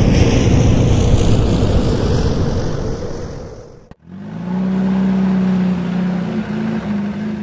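Sound effect of a large aircraft passing: a broad rushing roar that fades away over about four seconds and cuts off. Straight after comes a vehicle engine running with a steady low hum.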